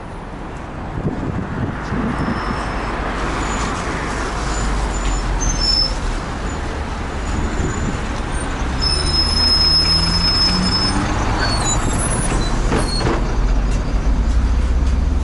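MAZ city bus pulling in at the stop and standing with its engine running, with air-brake hiss and a short high whine partway through. The engine's low rumble grows louder near the end, as heard from on board.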